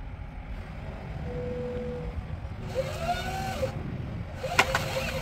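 Magni telehandler's engine running steadily while the Woodcracker tree shear works in the top of a white pine. A whine rises and falls a little past halfway, and a sharp crack comes near the end.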